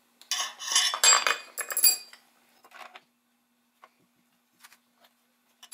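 Clatter of small tools and parts being handled and set down on a wooden cutting board, lasting about two seconds, then a few light taps.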